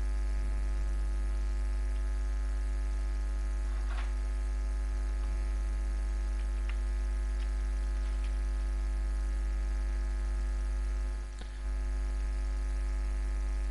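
Steady electrical mains hum on the recording, with a few faint clicks scattered through it. The hum dips briefly about eleven seconds in.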